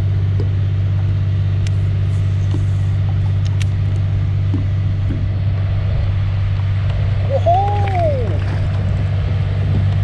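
A steady low mechanical hum, like a motor running, that starts suddenly at the beginning. A brief rising-and-falling whistle-like tone sounds about three-quarters of the way through.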